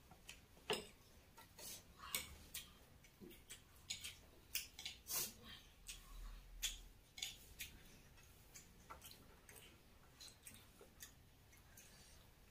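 Faint eating sounds at a meal: irregular clicks and smacks of chewing and a fork against plates, one to three a second.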